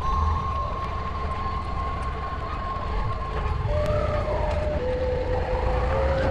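Honda Africa Twin XRV750 V-twin engine running at low road speed, with a low rumble underneath. Its steady note drops in pitch twice in the second half.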